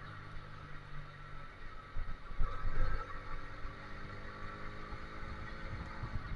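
Small motorbike engine running steadily while riding, with irregular wind buffeting on the microphone, strongest a couple of seconds in.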